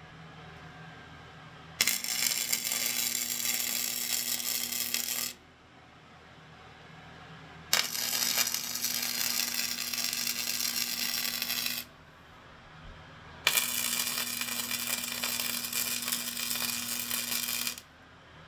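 Arc welding: weld beads being laid onto worn forging dies to build up the worn-away spots. Three runs of steady crackling and sizzling of about four seconds each, with a steady low hum under each and short pauses between.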